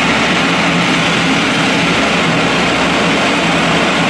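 The four turboprop engines of a Lockheed C-130 Hercules running at a steady drone, with a constant low hum under a broad engine noise.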